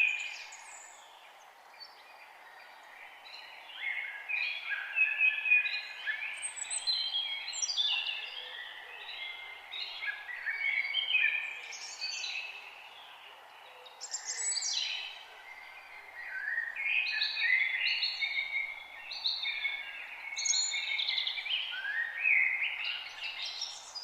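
Songbirds singing: rapid, jumbled chirps and whistles in bouts of a few seconds with short pauses between, over a steady faint background hiss.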